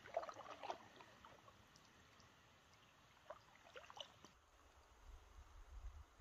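Faint water dripping and gurgling from a canoe paddle dipping into the river, with a cluster of drips near the start and another about three to four seconds in. A low rumble comes in toward the end.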